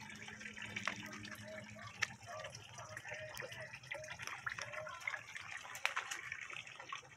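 Water running into a garden pond over its rock edge, a steady trickle with many small drips and splashes.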